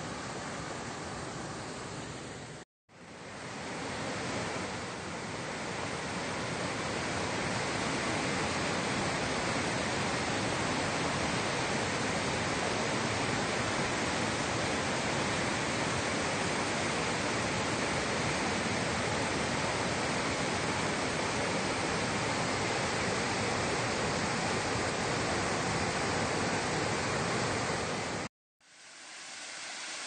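Steady rushing of a rocky mountain stream cascading over boulders. The sound drops out for an instant about three seconds in and again near the end.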